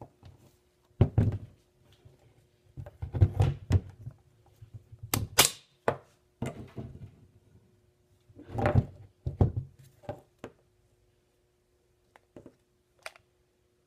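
Handling of a Rivet King RK-50SP rivnut tool: a series of irregular thunks and knocks as its heavy cylindrical body is moved about, stood on the wooden bench and picked up again, with one brief sharp high sound about five seconds in.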